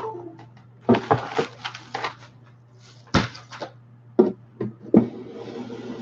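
Handling noises of a person moving about close to the microphone against a large inflatable vinyl horse toy: a string of uneven knocks and bumps with rustling, over a steady low hum.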